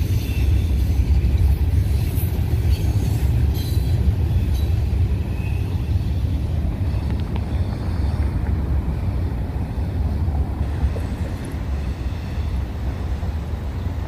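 Freight cars of a long freight train rolling past with a steady low rumble, near the tail end of the train; it eases off slightly in the last few seconds.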